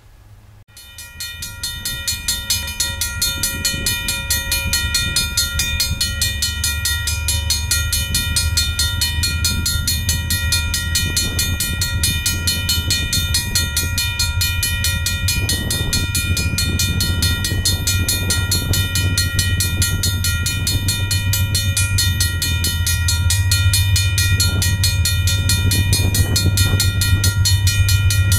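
Freight train approaching from a distance behind two GE diesel locomotives, a Dash 8-40C and a Dash 9-40CW: a steady low rumble that grows louder near the end, with a constant high-pitched whine over it.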